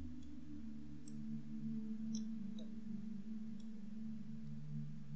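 Computer mouse clicking about five times at irregular intervals, short sharp clicks, over a steady low hum.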